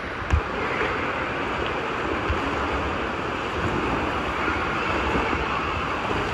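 Swimming-pool water lapping and splashing close to the microphone, a steady rushing wash of noise, with one low thump less than half a second in.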